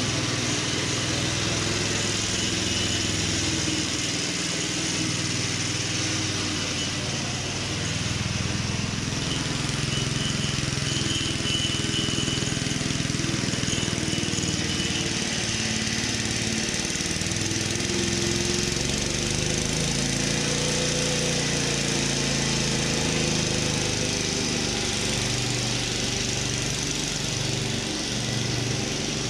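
Petrol engine of a vintage Ransomes Marquis cylinder mower running steadily under way, its pitch rising and falling slightly.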